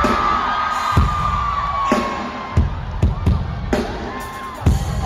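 Live pop concert music with a heavy kick-drum beat about once a second and long held, gliding high tones over it, while the crowd cheers and screams.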